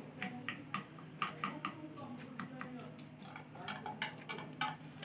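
Light, irregular clicks and taps of fingers picking food off a plate while eating by hand, about a dozen over the few seconds, with a faint low hum underneath.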